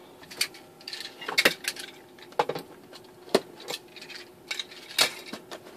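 Packaging being handled on a tabletop: irregular light clicks and knocks, the loudest about one, two and three seconds apart, with a faint rustle.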